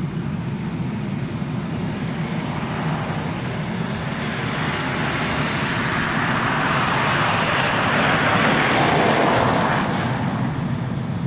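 A steady low rumble, with a rushing noise that builds over several seconds, peaks and dies away near the end, as something passes.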